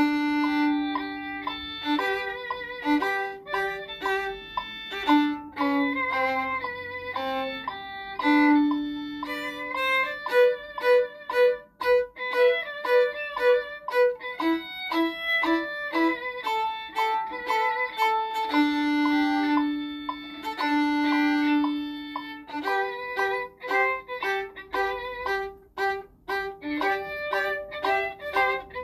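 Violin playing a melody, mixing held notes with runs of short repeated notes, the clearest run about ten seconds in.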